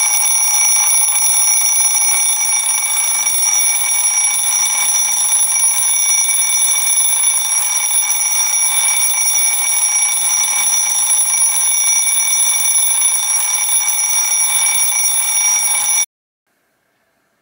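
Smartphone alarm ringing: a loud, steady, unbroken ringing tone that cuts off suddenly near the end.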